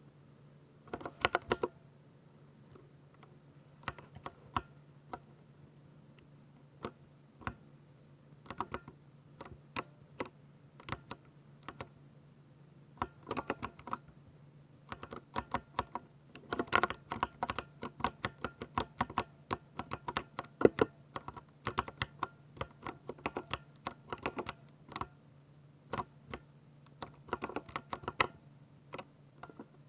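Typing on a Ducky 60% mechanical keyboard with silver linear switches: irregular keystrokes, single presses spaced out between several fast runs, the longest and busiest in the middle.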